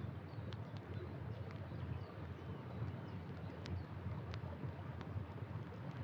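Wood campfire burning: a steady low rush with sharp crackles and pops about every half second, the loudest a little past halfway. A couple of faint short high chirps come near the middle.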